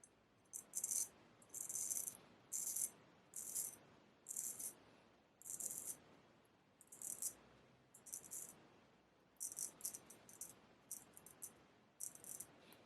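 Straight razor blade making about a dozen short, high-pitched scraping strokes, roughly one a second.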